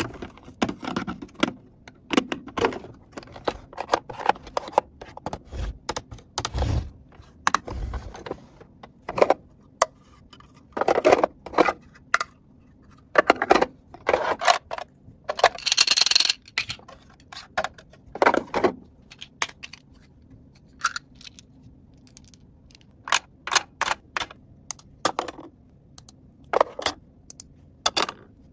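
Small plastic toy pieces clicking, rattling and scraping as they are handled and set down, in irregular bursts with pauses, and a longer rustling noise about sixteen seconds in.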